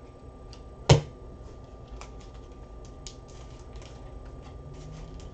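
Things being handled on a desk: one sharp knock about a second in, followed by a run of light clicks and ticks.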